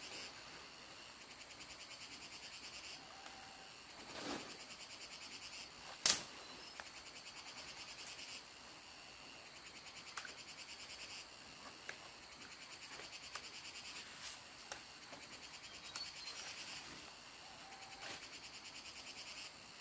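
Insects trilling in fast-pulsing high phrases a few seconds long, with scattered sharp cracks of dry branches and vines being pulled and snapped; the loudest crack comes about six seconds in.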